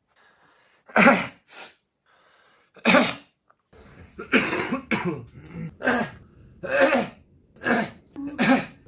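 A man coughing repeatedly in short single coughs, a few spaced well apart at first, then about one a second over the last few seconds.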